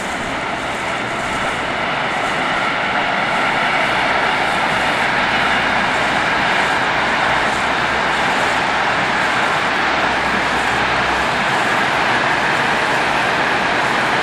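Freight train hauled by an electric locomotive rolling past: a steady roar of wagon wheels on rail that builds over the first few seconds, then holds.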